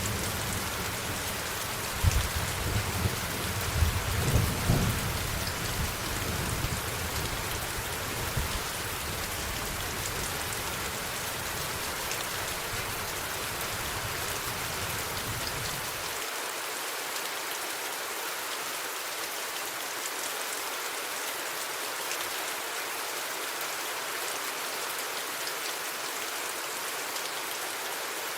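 Steady rain with low thunder rumbles about two and four seconds in that die away. The low rumble drops out a little past halfway, leaving only the rain's even hiss.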